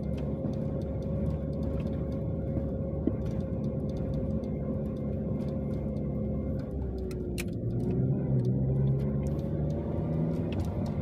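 A motor vehicle engine running steadily while driving, with a heavy low rumble. Its pitch shifts about two-thirds of the way through and then settles again.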